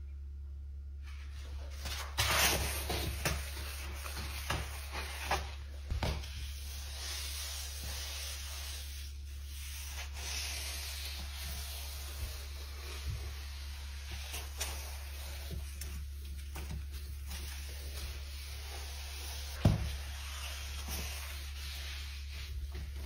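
Microfibre cloth rubbing and wiping cleaning foam across a glass cooktop, in a run of uneven strokes. A single sharp knock comes about twenty seconds in.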